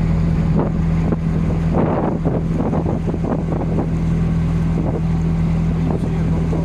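A small boat's engine running steadily with a low hum, under wind noise on the microphone and water splashing against the hull, busiest about two to three seconds in.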